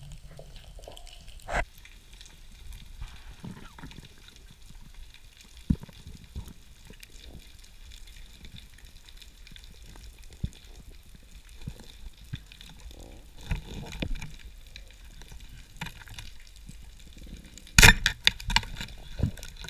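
Underwater sound through a diver's camera housing: a low, steady wash with scattered faint crackling clicks. Near the end comes a cluster of loud, sharp knocks as a speargun's shaft strikes into a rock hole.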